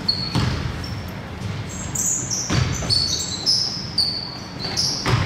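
Basketball being played on an indoor court: rubber-soled sneakers squeak in short high chirps as players move, and the ball thuds on the court three times, about two and a half seconds apart.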